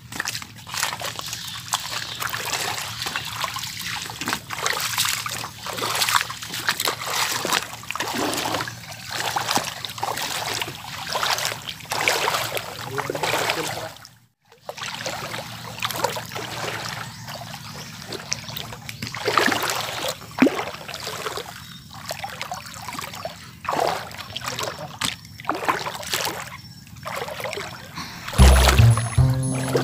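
Feet wading and splashing through shallow water over rocks, an uneven run of splashes and sloshes that stops briefly about halfway. Music with steady low tones comes in near the end.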